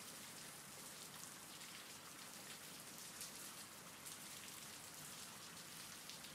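Faint, steady rain: an even hiss of falling rain, strongest in the high range.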